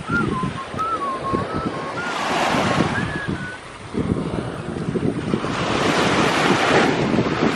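Small waves washing up onto a coral-gravel beach, swelling twice, with wind buffeting the microphone. A thin, wavering whistle runs through the first half.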